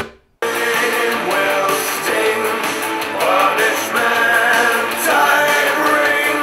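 A song with singing plays through a Tribit MaxSound Plus Bluetooth speaker. It cuts out for a split second as the X-Bass button is pressed, then resumes thin, with no deep bass: X-Bass switched off.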